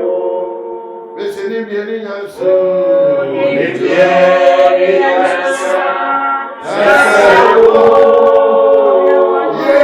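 A group of voices singing a worship song together, with long held notes.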